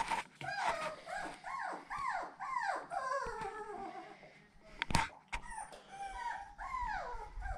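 Seven-week-old toy poodle puppy whining, a run of short cries that each rise then fall in pitch, about two a second, then a few more near the end. A sharp knock about five seconds in.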